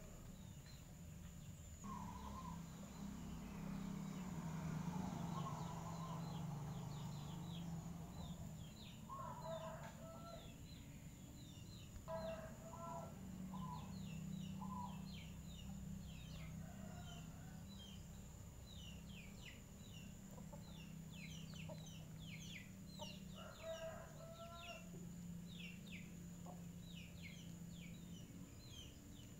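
Faint ambience: chickens clucking now and then, over a low steady hum. Quick, high chirps from small birds come thick and fast through the second half.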